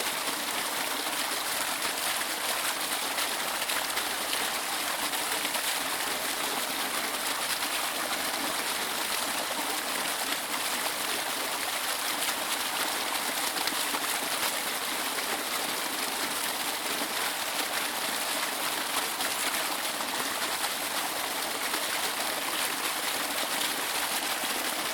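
Waterfall rushing: a steady, even hiss of falling water, bright and high with little low rumble.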